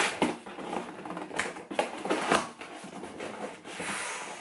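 Cardboard shipping box being pulled open by hand: its packing tape and flaps crackle and scratch in a string of short, sharp sounds, with a longer rustle near the end.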